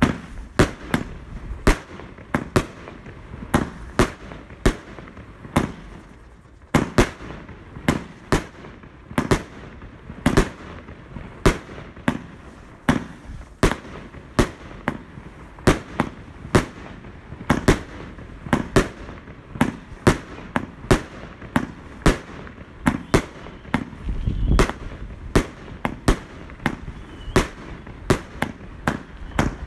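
Consumer firework battery (a 4-in-1 'Bombebrian' cake) firing shot after shot as its shells burst in the air. A steady run of sharp bangs comes about two a second.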